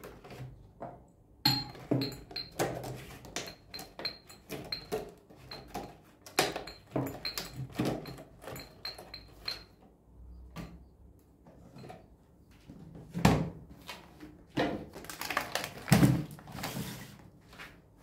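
Glass tea glasses and clear plastic containers being handled and set down on a table: a run of light taps and clinks with a faint glassy ring through the first half, then a few louder knocks near the end.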